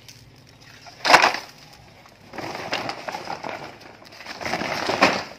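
A hard plastic toy truck knocks with a sharp clatter about a second in as it goes into a woven plastic sack among other toys. The sack's stiff woven material then crinkles and rustles twice as it is handled and gathered.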